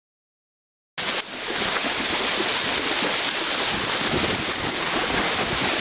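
Steady rush of wind on the microphone mixed with water splashing around the legs of horses wading, starting abruptly about a second in.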